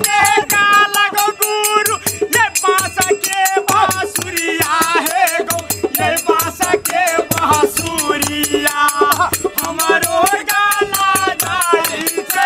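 Instrumental Maithili Holi folk music: a wavering melody over a fast, steady jingle of hand cymbals and a regular drum beat.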